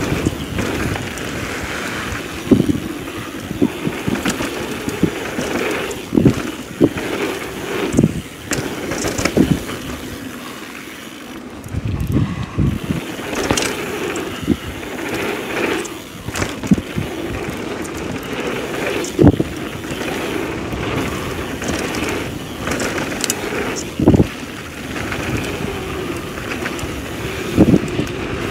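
Downhill mountain bike rolling fast down a packed-dirt trail: steady tyre rumble with wind on the microphone, and frequent sharp knocks and rattles as the bike goes over bumps.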